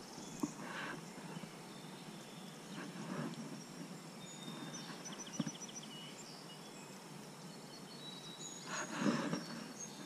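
Quiet riverbank ambience: a soft background hiss with faint bird chirps, a short rapid trill about halfway through and high whistled notes near the end. A few light knocks and a brief rustle come from handling near the microphone.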